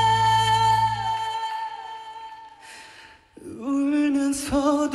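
A male singer holds a long high note with vibrato over the backing band, and both stop after about a second and fade away. A short breath follows, and a softer sung phrase begins about three and a half seconds in.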